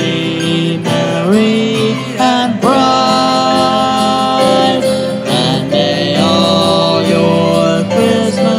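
Live band music: strummed acoustic guitar and electric keyboard under a melody of long held notes that slide up into pitch.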